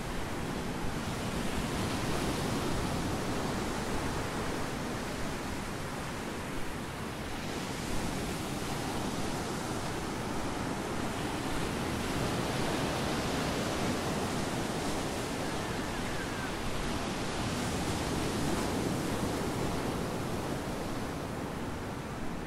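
Small ocean waves breaking and washing up on a sandy beach, a steady rushing that slowly swells and eases, with wind on the microphone.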